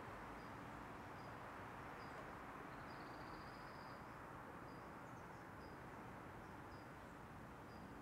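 Faint cricket chirping, short high chirps about once a second with one longer trill a little over three seconds in, over a steady outdoor background hiss.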